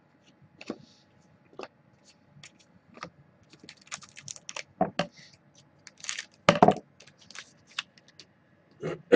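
Trading cards being handled at a table: scattered light clicks, taps and rustles as cards are flipped and set down, with a louder knock about six and a half seconds in.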